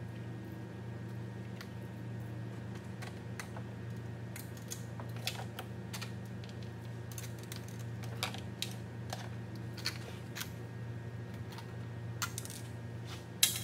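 Light, irregular clicks and clinks of metal terminal nuts and cable lugs being worked off the posts of a golf cart's AGM battery pack by hand, the sharpest click near the end. A steady low hum runs underneath.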